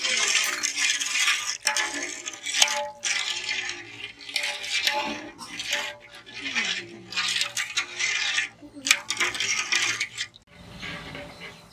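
Perforated metal ladle stirring sugar syrup in an aluminium pot, scraping and clinking against the pot's metal in repeated irregular strokes.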